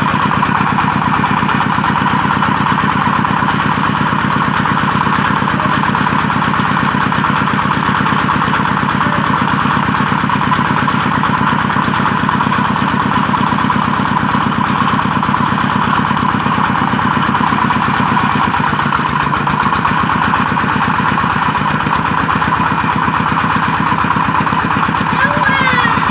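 Red-brick making machine running steadily, an engine drone with a fast even beat. A few high gliding squeals come in near the end.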